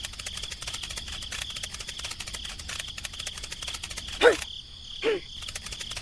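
Cricket chirping: a fast, even run of fine clicks with a steady high ring throughout. Near the end come two short, louder calls a second apart, each sweeping down in pitch.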